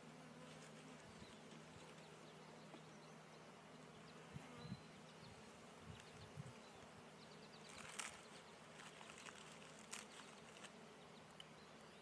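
Faint steady buzzing of honeybees around an open hive, with a few light clicks and knocks as wooden frames are handled, the sharpest about two-thirds of the way through.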